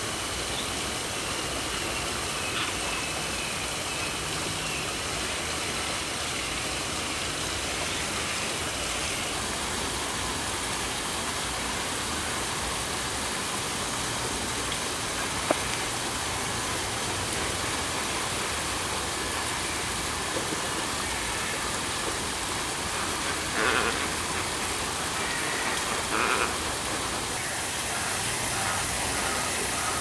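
Steady rushing outdoor background noise, even and hiss-like, with a single sharp click about halfway through and two short, louder sounds near the end.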